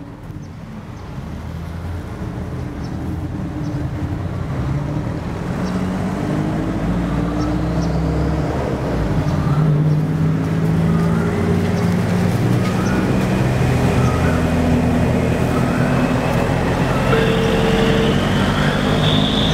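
Steady road-traffic rumble from passing vehicles, fading in over the first few seconds and then holding level.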